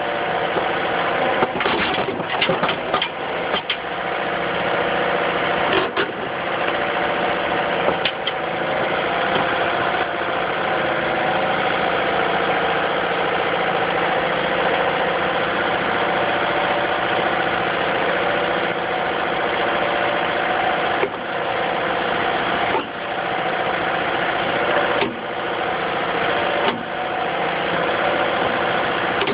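Excavator's diesel engine running steadily. There are a few sharp knocks in the first eight seconds.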